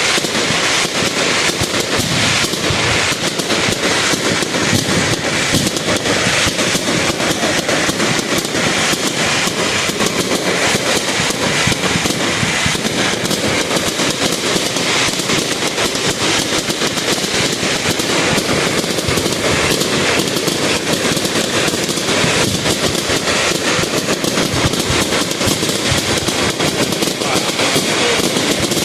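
Fireworks going off in a dense, continuous barrage of rapid bangs and crackles, with no pause.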